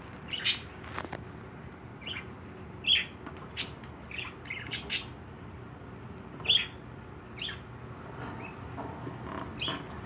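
Pet budgerigars chirping and squawking in short, scattered calls, a few of them sharp and loud.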